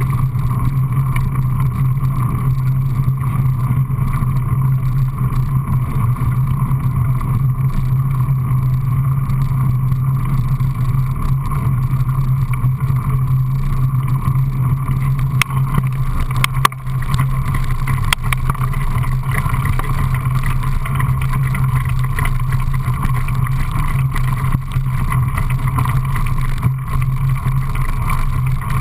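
Steady rushing noise of a mountain bike rolling fast downhill, tyre noise on tarmac and then gravel trail mixed with wind over a bike-mounted camera. A few sharp knocks from bumps come around the middle.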